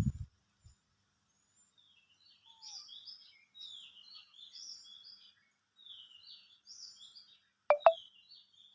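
Birds chirping in a run of short, high notes, with two sharp clicks close together near the end.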